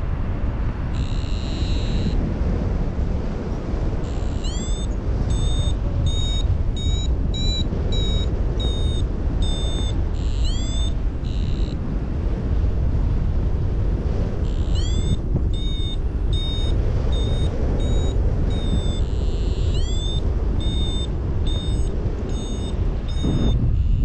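Paragliding variometer beeping over heavy wind noise on the microphone. The vario gives runs of short high beeps, about two a second, with a few rising chirps and some longer held tones; its beeping signals that the glider is climbing in lift.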